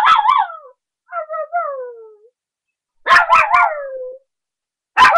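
A 3½-month-old puppy barking in play: high-pitched yappy barks that trail off into drawn-out, falling howl-like whines. The calls come in four groups: at the start, a softer falling whine about a second in, another at about three seconds, and a last near the end.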